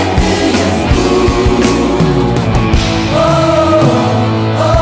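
Gospel choir singing with a band behind it, drums keeping a beat under the held vocal lines.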